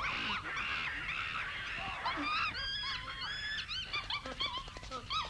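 Cartoon monkeys shrieking: a rapid run of short, high, arching calls, many overlapping, over a rushing noise in the first two seconds, with a quick patter of clicks near the end.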